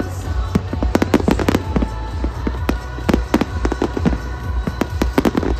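Fireworks display going off in quick succession: a dense, irregular run of sharp bangs and crackles, several a second, with music playing underneath.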